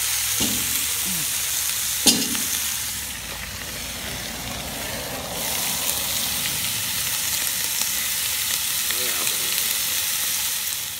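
About a pound and a half of bacon frying in a hot Lodge 12-inch cast-iron Dutch oven, a loud steady sizzle that eases for a couple of seconds in the middle and then picks up again. A single sharp knock comes about two seconds in.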